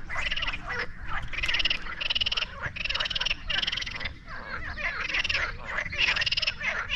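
Frogs calling in a loud chorus: many overlapping buzzy, pulsed croaks follow one another about twice a second. It is a breeding chorus, which the anglers take for frogs in season.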